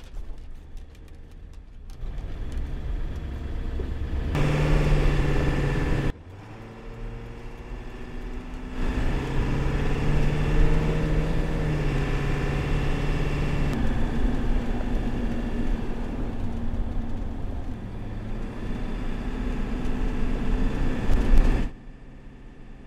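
Ford E350 4x4 van's diesel engine running as the van drives, in spliced sections that cut in and out abruptly, the engine pitch shifting from one section to the next.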